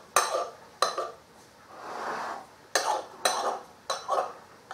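Kitchen knife trimming pastry around the rim of a white fluted ceramic pie dish: several sharp clicks of the blade against the dish's edge, spaced irregularly, with a soft scrape of the cutting in between.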